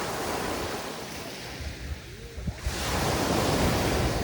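Mediterranean sea waves breaking and washing up the beach: one wash early on, then a second, louder wave surging in a little past halfway. Wind rumbles on the microphone underneath.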